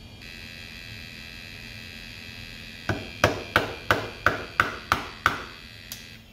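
Conner CP30544 hard drive running with a steady high whine from its spinning platters, then about three seconds in a run of about eight loud sharp knocks, roughly three a second, with a last weaker one near the end. The knocking is typical of the failing drive's 'click of death'.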